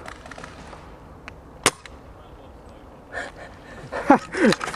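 Airsoft gun firing: one sharp snapping shot about a third of the way in, with a few fainter clicks around it. Near the end come short cries that fall in pitch.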